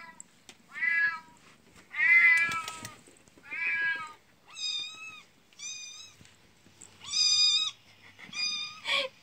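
Recorded cat meows playing from a tablet's speaker: about eight separate meows, the first few lower with bending pitch, the later ones higher and flatter. A sharp click near the end.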